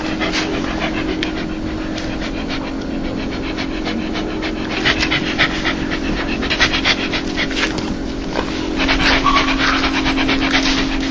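A dog panting rapidly in quick breathy huffs, the 'heh-heh-heh' often called a dog laugh, a sound of a happy, excited dog. A steady low hum runs underneath, and the panting grows louder past the middle and again near the end.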